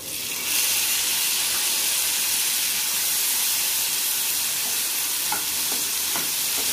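Chopped tomatoes sizzling in hot oil in a frying pan, the hiss swelling about half a second in and then holding steady, with a few spatula scrapes near the end as they are stirred.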